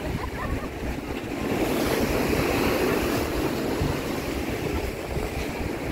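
Sea waves washing and breaking on the beach, swelling louder for a couple of seconds about a second and a half in, with wind buffeting the microphone.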